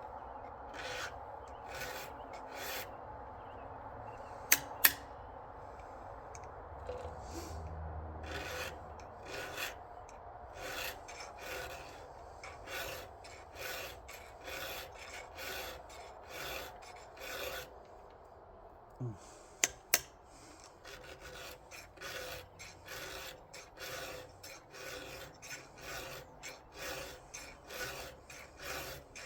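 A 7/32-inch round file rasping across the cutter teeth of a chainsaw chain in steady hand strokes. It runs at a bit over one stroke a second for most of the stretch, then quicker, about one and a half a second, near the end. Two sharp metal clicks come about five seconds in and another about twenty seconds in.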